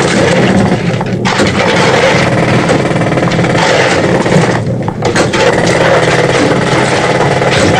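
Loud, continuous clatter of coal-mining machinery such as pneumatic picks at a coal face, with short lulls about a second in and again near the middle.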